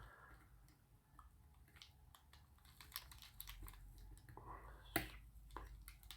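Faint small clicks and taps of watchmaker's tools against the parts of a pocket watch movement as a piece is held down and worked into place, with one sharper click about five seconds in.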